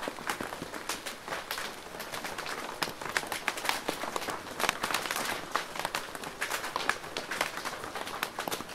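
Rain drumming on a plastic roof: a steady patter of drops with many sharp, irregular taps.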